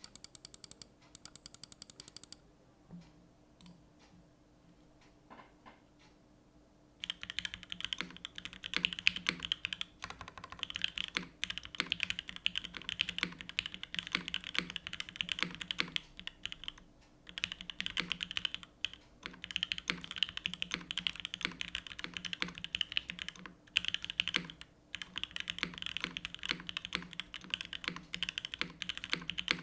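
TGR x GAF 910 PC mechanical keyboard with lubed Gateron Ink Black v2 linear switches, GMK keycaps and an aluminium plate in a top mount, being typed on. A short run of evenly spaced keystrokes and a few single key presses come first, then from about seven seconds in there is steady fast typing with brief pauses.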